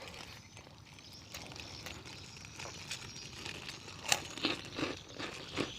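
Close-up eating sounds of crispy fried chicken: tearing, crunching and wet chewing clicks, sparse at first and denser and louder in the last couple of seconds.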